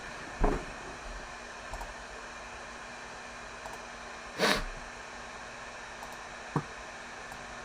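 Steady background hiss, broken by a short thump about half a second in, a brief breathy noise burst about four and a half seconds in, and a small click a couple of seconds later.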